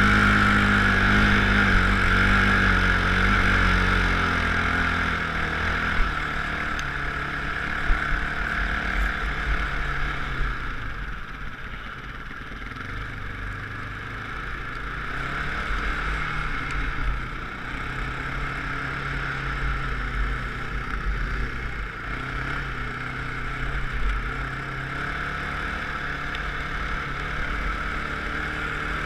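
Off-road vehicle engine running under throttle across sand dunes, loudest at first, easing off about ten seconds in, then pulling steadily again, its pitch stepping up and down. A steady rushing noise sits over the engine.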